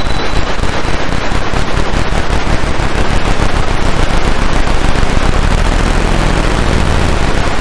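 Roland AIRA Compact S-1 synthesizer playing a harsh, loud noise texture full of rapid crackling, with a low drone swelling up about five seconds in.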